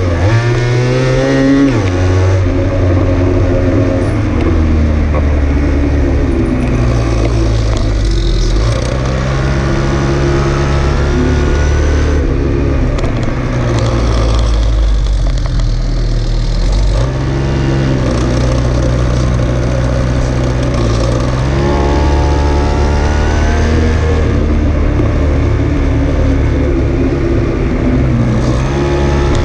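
A small engine running hard, its pitch rising as it is revved, then dropping back, several times over.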